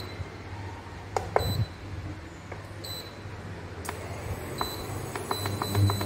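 Portable induction hob humming steadily under a stainless steel frying pan of hot sausage juices. There are two sharp clinks about a second in, and in the second half a run of quick light ticks, about six a second.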